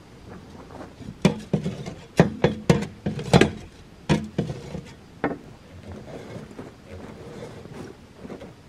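A run of sharp knocks and bangs, about a dozen in the first five seconds, as a heavy wooden table with a steel frame is levered with a shovel and shoved out of a shipping container; quieter scraping and shuffling follows.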